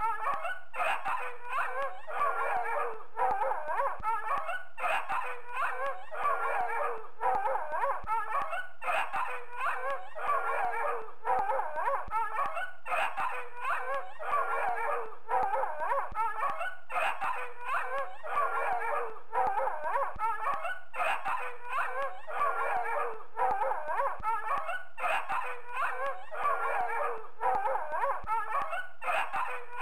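Dog barking loudly and continuously in rapid runs of barks. The pattern repeats about every four seconds, as a looped recording does.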